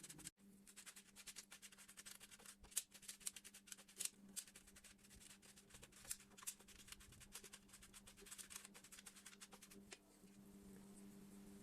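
Faint, irregular scratching and clicking of hand work on small parts, over a low steady hum; the clicks die away about ten seconds in and the hum becomes more prominent.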